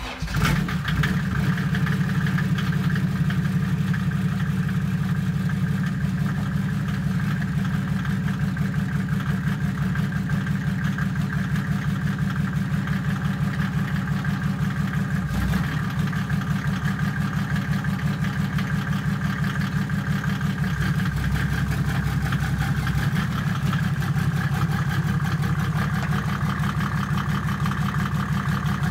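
Mercedes OM606 straight-six turbo diesel, swapped into a Land Rover Defender, starts up and settles into a steady idle with an even, rhythmic beat.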